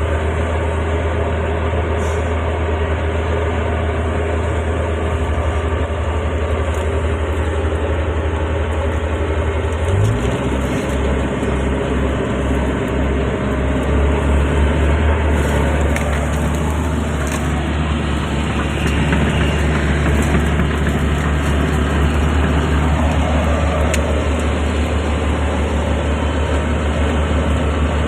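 Hydraulic excavator's diesel engine running steadily. About ten seconds in, its note changes and takes on a pulsing beat, and it grows slightly louder later on.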